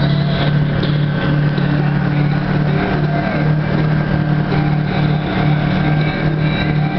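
Jet ski engine running steadily as the watercraft cruises along the water, a constant low drone that holds an even level throughout.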